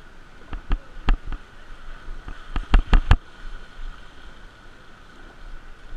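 Mountain bike jolting over a muddy, rutted dirt track: a series of sharp knocks and rattles, a few scattered about half a second to a second and a half in and a louder cluster of four around three seconds in, over a steady hiss.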